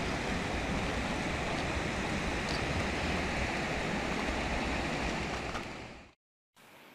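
Steady outdoor rushing noise with a deep rumble underneath, fading out near the end into a moment of silence.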